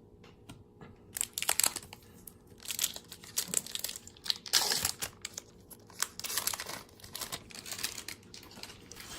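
Foil wrapper of a baseball card pack being torn open and crinkled, in irregular rustling bursts starting about a second in.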